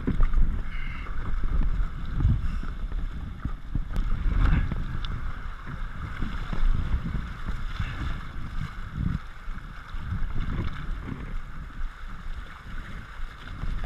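Shallow river riffles rushing and splashing around a kayak as it is paddled through, with paddle strokes dipping into the water. Wind buffets the microphone in irregular gusts.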